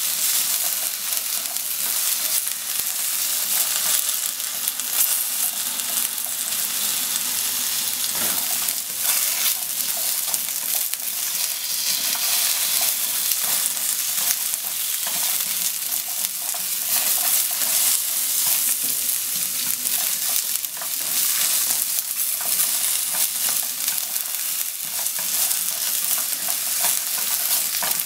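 Sliced potatoes sizzling in oil in a nonstick frying pan as they are stirred and turned with wooden chopsticks: a steady frying hiss with frequent small crackles and the light clatter of the chopsticks against the pan.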